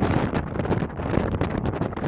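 Wind over an aircraft carrier's flight deck buffeting the microphone in uneven gusts.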